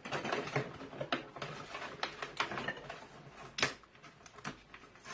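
Parts of a boxed metal bird feeding station being unpacked and handled: a run of light clicks and rattles, with a sharper knock about three and a half seconds in.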